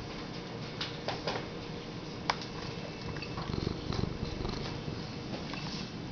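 Domestic cat purring close to the microphone, the low rumble strongest for about a second near the middle, with a single sharp click a little before it.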